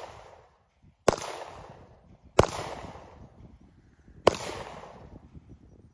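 Three pistol shots, the first about a second in and the others roughly a second and a half to two seconds apart, each followed by a fading echo.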